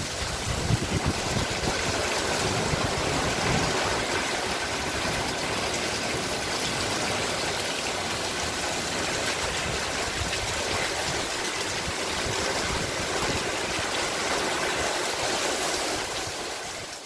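Heavy wind-driven rain pouring down in a steady, dense hiss, with a gusty low rumble in the first few seconds.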